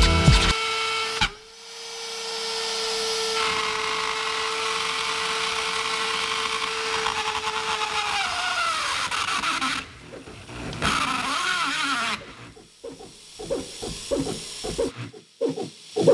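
A hobby CNC router meant for wood, its spindle whining at a steady pitch as an end mill cuts into a thick aluminum block. About eight seconds in the whine sags lower, and after that the cutting noise is uneven, coming and going.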